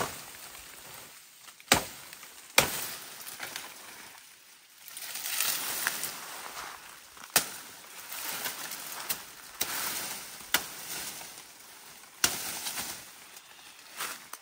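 Machete chopping bamboo stalks: sharp, irregular strikes spaced a second or several apart, with leaves and stalks rustling in the middle as a cut stalk is pulled down.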